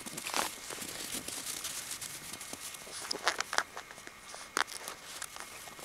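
Scattered crunching and crinkling in snow from footsteps and Alaskan Malamute puppy paws, with a cluster of sharper crunches about three seconds in and another near four and a half.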